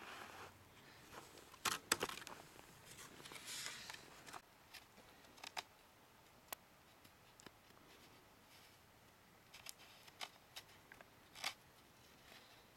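Rubbing and scraping at the base of a cross-country ski while trying to apply wax that won't go on, with short scrapes and scattered sharp clicks, the loudest about two seconds in.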